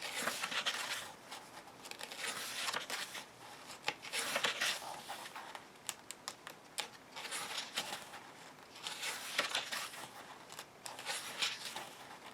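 Pages of a small hardcover coloring book being turned one after another, a papery swish of light card stock every second or two.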